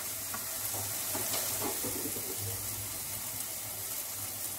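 Curd-and-spice gravy sizzling steadily in a kadai, a constant hiss with a few faint ticks.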